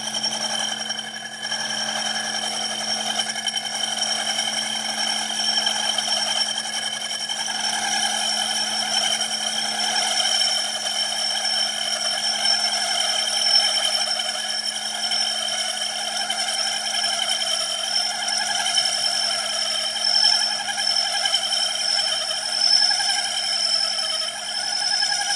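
Metal lathe turning a Honda GX160 starter cup while a 1/8-inch carbide-tipped cutoff tool cuts it down: a steady high-pitched ringing squeal over the lathe's running hum, wavering slightly as the cut goes on.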